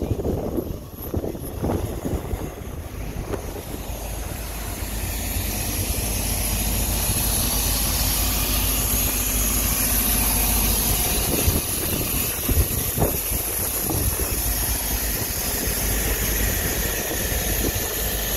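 Steady rumble and hiss of highway traffic with wind on the microphone, growing louder about four seconds in.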